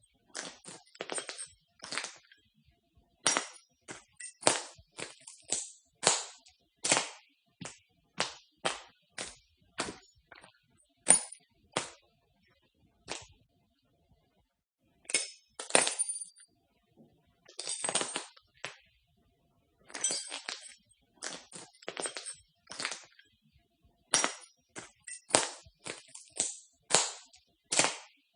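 Footsteps crunching on broken glass, one crunch every half-second to second, with a pause of a couple of seconds about halfway through.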